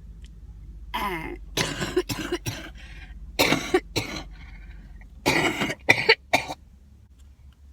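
A woman coughing in several bouts over about six seconds, ending with two short, sharp coughs. It is a productive cough that brings up green mucus from lungs affected by cystic fibrosis.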